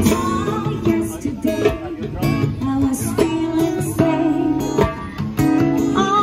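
Live acoustic band playing: a woman singing into a microphone over a strummed acoustic guitar, with a hand drum beating a steady rhythm.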